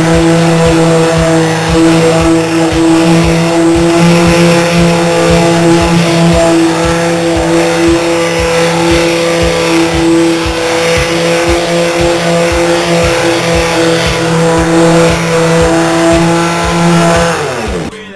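A loud, engine-like drone held at one steady pitch, gliding up as it starts and falling away near the end, with a regular low thumping underneath.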